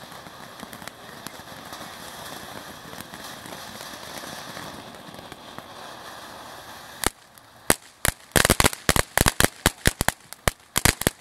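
Ground fountain firework spraying sparks with a steady hiss. About seven seconds in, sharp pops start, and within a second they become rapid, loud, irregular crackling.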